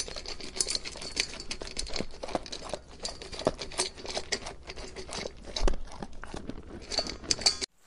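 Camel chewing close to the microphone: a dense, irregular run of crunching clicks and crackles as its jaws grind.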